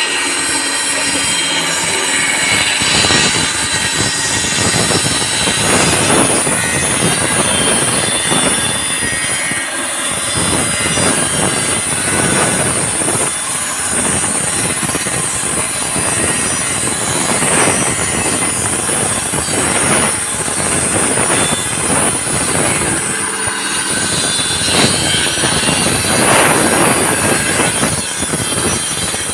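Handheld electric circular saw cutting through a wooden board: a steady high motor whine over the rasp of the blade in the wood, running without a break.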